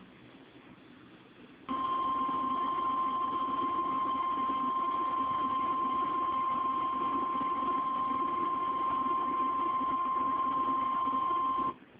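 Emergency alert attention tone, a single steady tone near 1 kHz like the NOAA Weather Radio 1050 Hz warning alarm. It comes on abruptly about two seconds in, holds about ten seconds and cuts off just before the end, signalling that a warning message follows.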